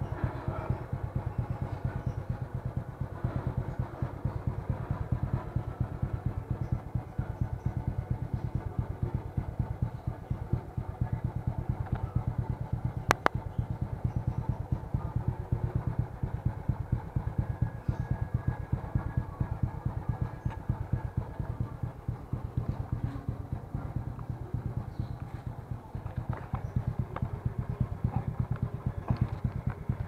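Suzuki Smash's single-cylinder four-stroke engine idling steadily through an aftermarket Exos R5i exhaust, a low, even exhaust putter; the owner calls it a silent pipe. One brief click about halfway through.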